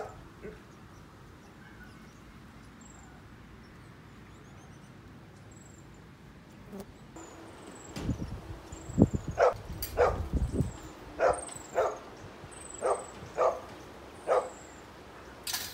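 A dog barking repeatedly, about eight short barks spread over five seconds, with small birds chirping high and thin throughout. A few low thumps come just before the barking starts.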